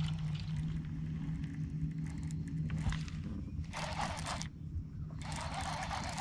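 Electric trolling motor on a bass boat humming steadily. A hissing noise comes in twice, about two-thirds of the way through and again near the end.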